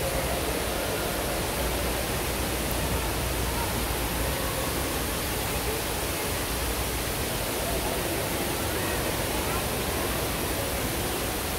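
Steady rushing background noise, even and unbroken, with faint voices murmuring underneath.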